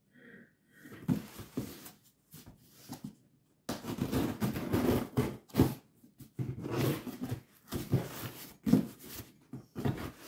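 Scissors cutting through the packing tape on a cardboard shipping box: a run of irregular scraping and ripping strokes against the cardboard, growing denser and louder a few seconds in.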